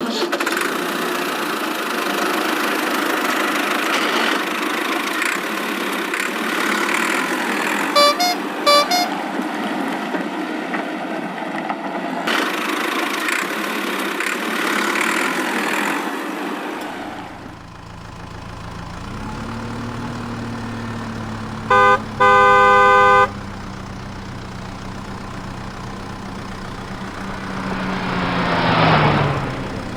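Cartoon vehicle sound effects: an engine running with a noisy rumble and two short horn toots about a third of the way in, then a steadier engine hum. Midway a loud horn sounds twice, a short toot then a long blast, and the engine's pitch falls near the end.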